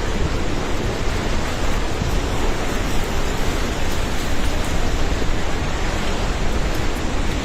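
River in flash flood, its floodwater rushing in a loud, steady noise.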